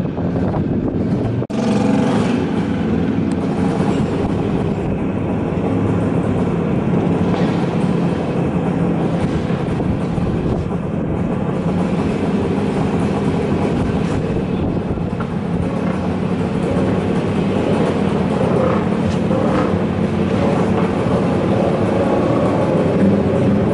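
Kawasaki inline-four engine of a Segale Kawasaki classic superbike running steadily at idle, with a brief drop-out about a second and a half in.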